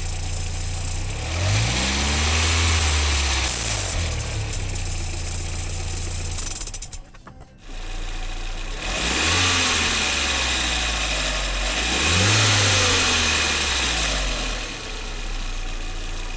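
Audi 1.8T turbocharged four-cylinder engine idling and being revved in short blips that rise and fall back to idle, once a couple of seconds in and twice more in the second half. There is a brief break about seven seconds in. The car has a leaking exhaust and a loose, rattling wastegate flapper, the faults this test is meant to capture.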